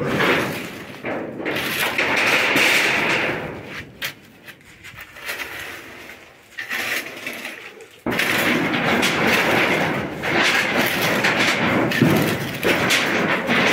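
Shovels scraping and chopping through a wet concrete-and-gravel mix, in rough irregular strokes. A spade then works concrete down into a footing hole, in a dense continuous crunching and scraping that starts abruptly about eight seconds in.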